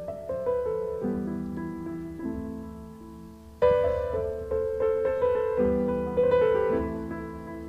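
Background piano music: chords with a slow melody over them, a fresh chord struck at the start and again about three and a half seconds in, each dying away.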